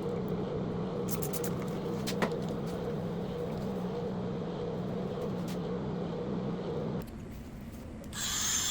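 Small power polishing tool running steadily, buffing copper plating with diamond compound. It cuts out about seven seconds in, and a higher-pitched whine starts about a second later.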